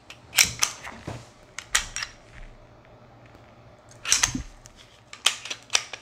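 The slide of an unloaded Gen 3 Glock 22C is worked by hand to check the chamber. It makes a series of sharp metallic clicks and clacks that come in several short clusters.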